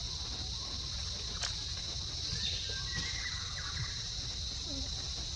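Steady, high-pitched insect chorus, like crickets, with a few faint short chirps about halfway through.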